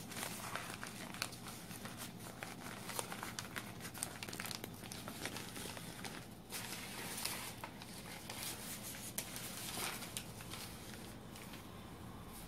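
Newspaper wrapping crinkling and rustling as it is pulled and torn off a potted plant, in irregular bursts of crackle with a short lull partway through and thinning out near the end.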